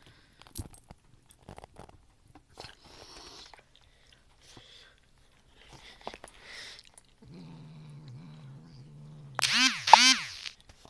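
A domestic cat chewing and biting at a piece of cheese with scattered clicks and crunches, then growling low and steadily from about seven seconds in while guarding the food. Near the end the growl swells into two loud yowls that rise and fall in pitch.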